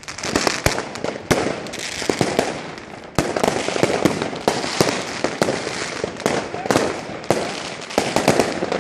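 New Year's Eve fireworks and firecrackers going off all around: a dense, irregular string of sharp bangs and pops over continuous crackling.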